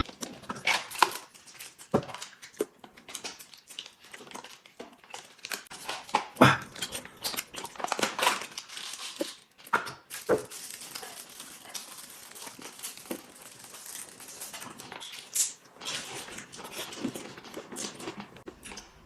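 People eating at the table, heard as irregular chewing and mouth noises with many scattered small clicks.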